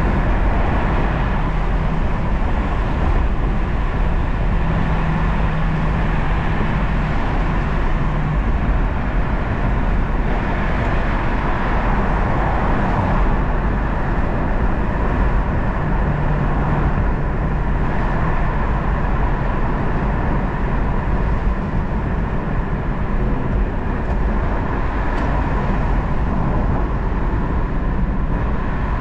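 Lexus LC 500's 5.0-litre naturally aspirated V8 running steadily while driving, its pitch holding level for a few seconds at a time and shifting in small steps rather than revving hard, over continuous road noise.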